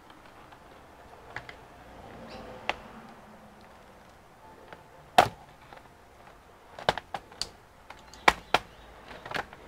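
Plastic retaining clips of an HP 14-CF laptop's bottom cover snapping loose as the cover is pried off by hand: a scattered run of about nine sharp clicks, the loudest about five seconds in and several close together in the last three seconds.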